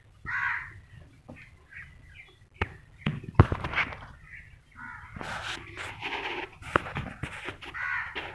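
Harsh animal calls: one near the start, a run of them in the second half and one near the end. A few sharp knocks fall in the middle, and one of them about three seconds in is the loudest sound.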